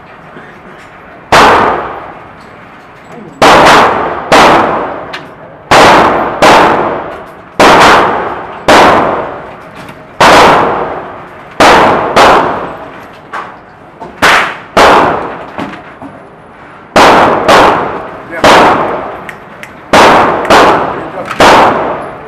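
Gunfire at an indoor shooting range: about two dozen sharp shots, irregularly spaced at roughly one a second and sometimes in quick pairs, each ringing out in a long echoing tail off the range walls.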